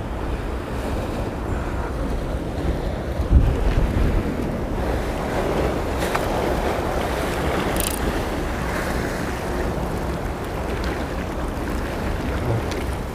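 Sea waves washing over shore rocks, with wind buffeting the microphone; a strong gust hits about three and a half seconds in.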